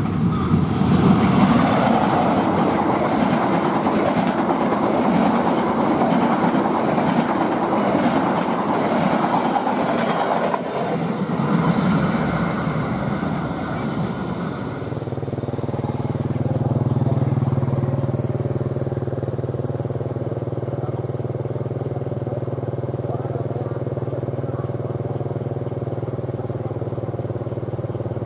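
Passenger train hauled by a diesel-electric locomotive passing at speed, its coaches' wheels clattering over the rails. About halfway through the rushing gives way to a steady low engine drone.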